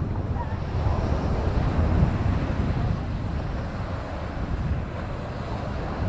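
Wind buffeting the microphone over the steady wash of small waves on a sandy beach.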